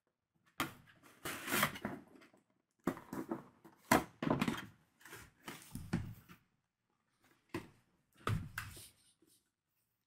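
Cardboard product box being handled and opened: rustling, scraping and sharp knocks of the packaging in irregular bursts, with silent gaps between them.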